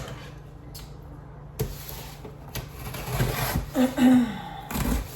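Packaging being handled and opened: rustling with sharp clicks and knocks, busiest in the second half.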